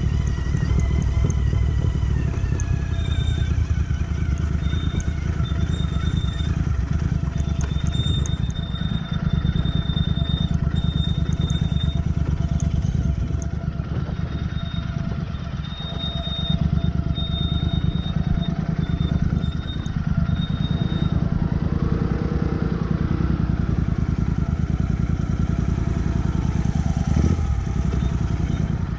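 Royal Enfield Interceptor 650's parallel-twin engine running at low revs as the motorcycle rolls slowly down a rough dirt trail, heard from the rider's seat.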